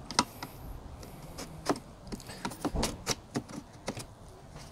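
Irregular sharp clicks and knocks, about a dozen, as a part is pressed and worked into place on top of a car engine without seating.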